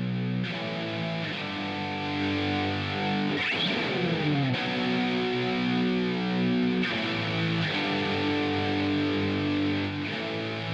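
Instrumental music with distorted electric guitar holding sustained chords that change every second or two, with a falling pitch sweep about three and a half seconds in.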